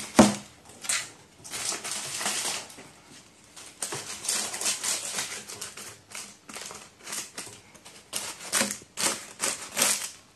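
Crow pecking and tearing at a paper balloon: crinkling, crackling paper and sharp taps of the bill, in irregular bursts with a louder knock just after the start.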